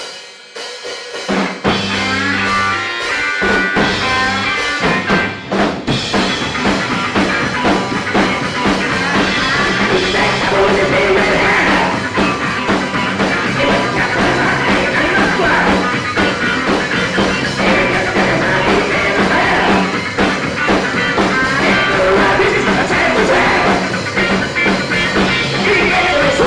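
Live rock-and-roll band playing: drum kit, electric guitars and bass, with a man singing into a microphone. The band comes in about a second and a half in.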